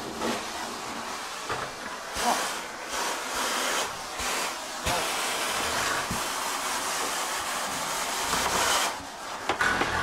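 Suction hose pumping sewage and feces out of a backed-up bathtub: a steady rushing hiss that dips now and then and falls off briefly near the end.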